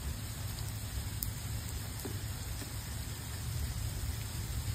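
Steady rain falling in a thunderstorm, with a continuous low rumble underneath and an occasional faint drip tick.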